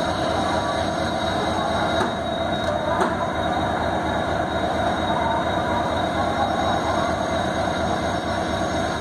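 EMD WDP-4D diesel-electric locomotive's 16-cylinder two-stroke 710 engine running loud and steady under power as the train departs, with a thin high whine held over it.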